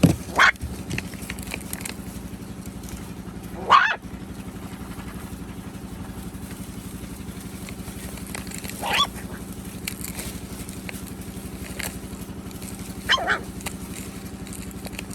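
Four short, loud animal calls, spaced a few seconds apart, over a steady low engine-like hum.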